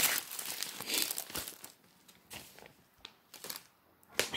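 Printed wrapping paper crinkling and rustling as a parcel is unwrapped by hand. The crackling is dense for the first second and a half, then thins to scattered rustles, with a short crinkle near the end.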